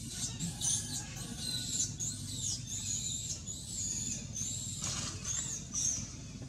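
A series of high-pitched, arching animal calls repeated about twice a second over a low steady background.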